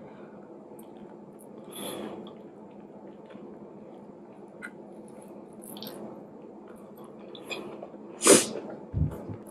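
Close-up mouth sounds of eating fufu and okra soup by hand: wet chewing and small clicks over a steady low background hum. There is a short, sharp, loud sound just after eight seconds, the loudest thing, and then a brief low thump.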